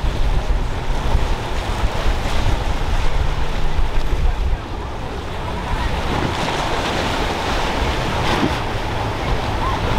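Choppy inlet water and boat wake splashing, with heavy wind buffeting on the microphone and a center-console boat's outboard motors running underneath. The wind rumble drops off about halfway through.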